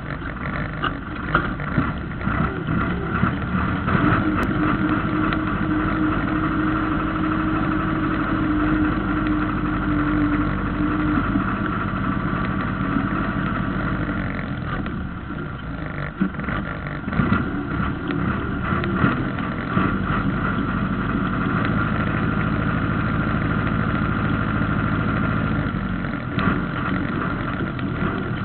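Valmet 702 tractor's diesel engine running hard under load as it pulls the weight sled, heard from inside the cab, with knocks and rattles over it. The engine note dips briefly about halfway through, then holds steady again.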